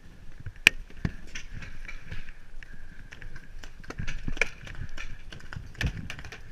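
Quick footsteps over dirt and gravel with gear knocking, and a few sharp cracks, the loudest under a second in.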